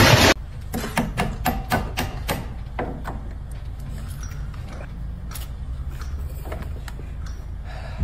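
A loud burst of noise cuts off abruptly at the start. Then comes a quick run of light clicks, clinks and knocks, slowing to a few scattered ones: a carpenter's tool belt and its tools being handled and hung on a framing hammer set in a wooden stud.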